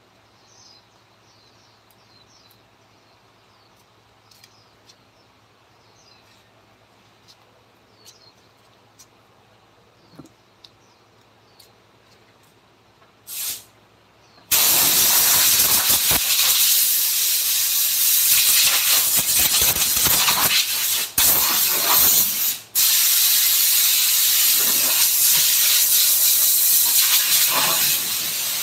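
A loud, steady hiss, like air jetting from a compressed-air tool, starts abruptly about halfway through and cuts out briefly twice. Before it there is only faint room tone with small scattered clicks.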